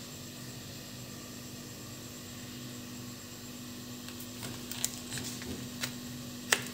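Cardboard apple pie sleeve handled on a paper napkin: a few light clicks and rustles from about four seconds in, ending in one sharp click, over a steady low hum.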